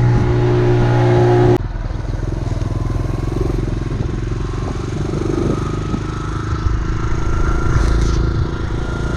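Kawasaki KLX150's single-cylinder engine running. About a second and a half in, the sound changes abruptly from a steady droning hum to a lower, rapidly pulsing engine note with a faint steady whine above it.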